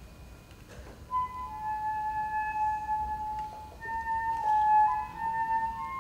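A single high woodwind playing a slow solo melody in long held notes over a hushed wind-orchestra background. It enters about a second in, and the notes step a little higher toward the end.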